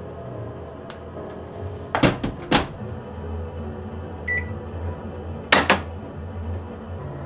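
Toshiba ZABOON front-loading washer-dryer: its drum door is shut with two loud thuds about half a second apart. A single electronic beep follows from its touchscreen as the wash-and-dry course is started. Two more quick clunks come near the end.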